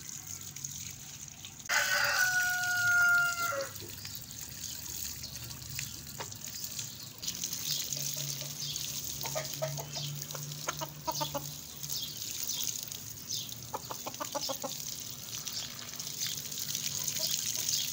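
Water pouring and splashing steadily over a rooster and onto wet concrete. About two seconds in, a rooster crows once for about two seconds, the loudest sound; later there are two short runs of rapid clucking.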